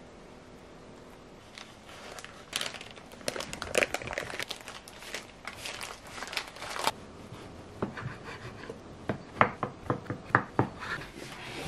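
Baking paper crinkling and rustling as a strawberry roll cake is rolled up in it, starting about a second and a half in. Then a knife slices the roll, its blade knocking sharply on a wooden cutting board several times near the end.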